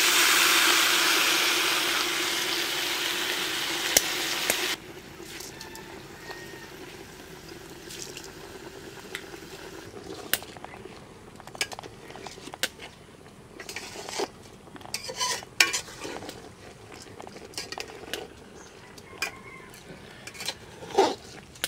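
Wet washed rice and red lentils hit hot oil in an aluminium pot and sizzle loudly for about five seconds, then the sizzle stops abruptly. After that a metal spoon scrapes and clinks against the pot as the rice, lentils and vegetables are stirred.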